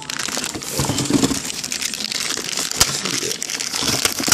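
Clear plastic packing bag crinkling and rustling as a car amplifier is handled in it, with one sharp click about two-thirds of the way through.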